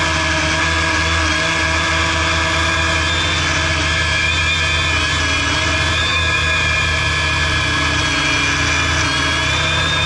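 Quadcopter's electric motors and propellers whining steadily, heard close up through the craft's onboard camera, the pitch wavering slightly now and then.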